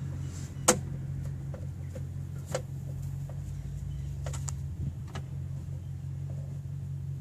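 A screwdriver fastening the screws on the plastic motor cover of a GTO PRO SL2000B slide gate opener: scattered light clicks and ticks, the sharpest about a second in, over a steady low hum.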